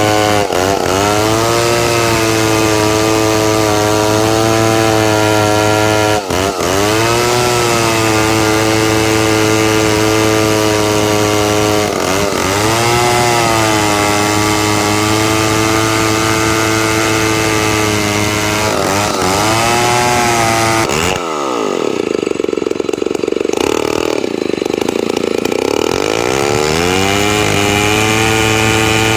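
Two-stroke chainsaw running at high revs while ripping timber into beams. Its pitch sags briefly and recovers every six seconds or so. About two-thirds of the way through it falls off toward idle for a few seconds, then revs back up.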